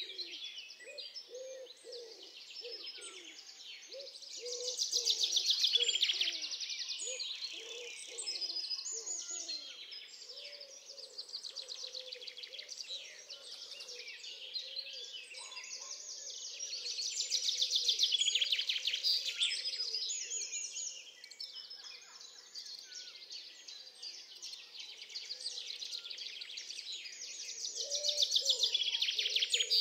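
Birdsong: rapid high trills and chirps that swell and fade three times, over a low repeated call.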